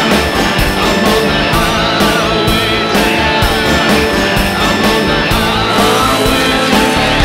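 Rock music soundtrack with guitar and a steady drum beat.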